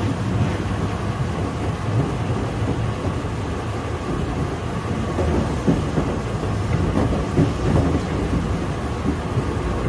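Running noise inside the cab of Tobu 8000-series electric train set 8111: a steady rumble of wheels and running gear on the rails, with a few louder clunks partway through.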